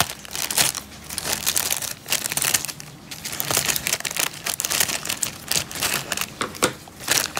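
Thin plastic packaging film crinkling as it is cut open with scissors and pulled apart, in irregular crackles.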